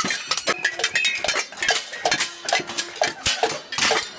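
Metal pot lids being banged as noisemakers: a fast, irregular metallic clanging of many ringing strikes.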